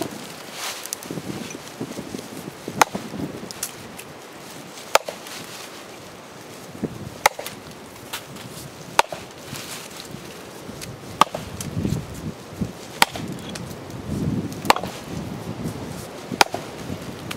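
A Council Tool 24-inch boys axe chopping into a log, about eight sharp strikes roughly every two seconds. The axe has its unsharpened factory edge, as it comes from the hardware store.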